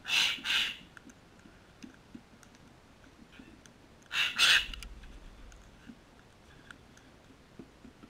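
A flock of sulphur-crested cockatoos feeding on scattered seed: scattered light clicks of beaks picking at seed on the pavers. Over them come two short, harsh squawks at the start and a third about four seconds in.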